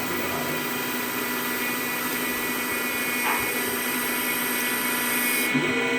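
CNC lathe running, a steady machine whine with several tones held together over a hiss. The high hiss drops away about half a second before the end.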